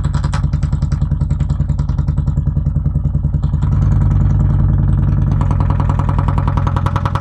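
Energy 8-inch polypropylene woofer driven hard with a 10 Hz test tone, its cone pumping in a rapid, even chatter. It grows louder about four seconds in and harsher a little later as the driver is pushed past its limits toward failure.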